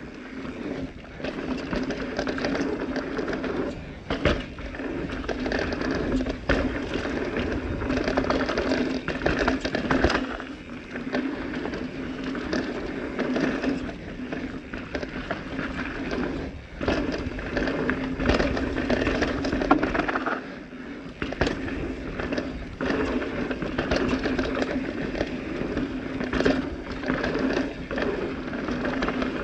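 Transition Smuggler full-suspension mountain bike riding down rough singletrack. Tyres rattle over rocks and roots with frequent sharp knocks and clatter from the frame and chain over a steady hum, and wind rushes on the action camera's microphone.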